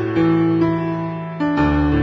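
Slow background keyboard music with held chords, a new chord struck about a second and a half in.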